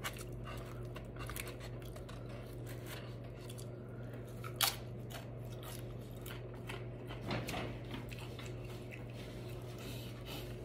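Close-miked chewing and crunching of a tortilla chip dipped in guacamole, with many small mouth clicks and one sharper crunch a little before halfway. A steady low hum runs underneath.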